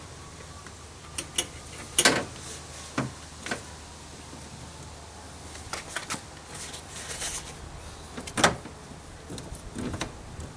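Hands working behind a partly removed car door panel at the interior door handle's locking rod: irregular plastic and metal clicks and knocks with some rustling. The loudest knocks come about two seconds in and near the end.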